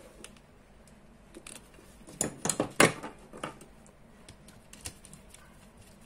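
Sharp metallic clicks and snaps from pliers and electrical wire being handled, bunched together about two seconds in and loudest near three seconds, with scattered light ticks around them.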